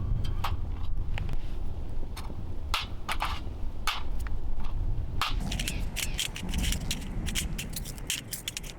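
Wood campfire crackling, with many irregular sharp pops and snaps over a low rumble.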